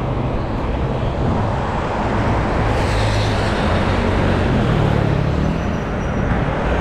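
Steady road traffic noise heard from a moving bicycle, with cars passing close by.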